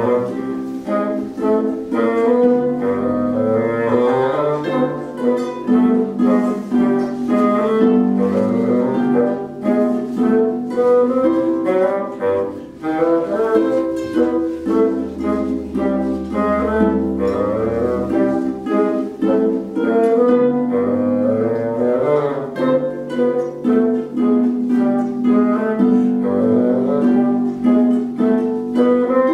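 Instrumental music: quick plucked string notes over a sustained low bowed-string line.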